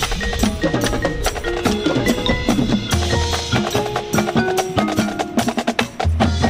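Marching band front ensemble playing music built on mallet percussion, with quick struck marimba and bell notes and wood-block clicks. A low sustained bass tone comes in about three seconds in and again near the end.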